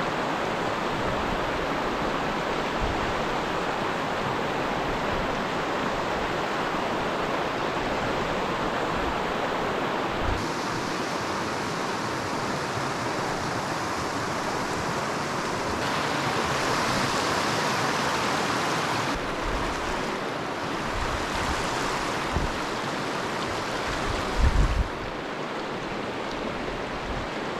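Mountain trout stream rushing over rocks: a steady wash of water noise whose tone shifts a few times. A brief low buffeting on the microphone comes near the end.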